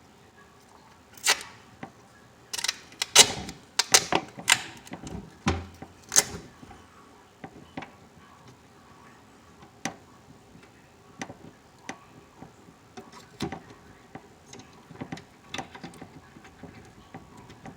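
Sharp clicks and knocks of wire connectors being worked and pulled off a furnace control board's terminals by hand: a cluster of loud ones in the first six seconds or so, then fainter, scattered ticks.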